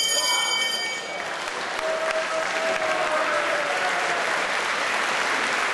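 Boxing ring bell ringing out briefly in the first second, marking the end of the bout, then a crowd applauding steadily.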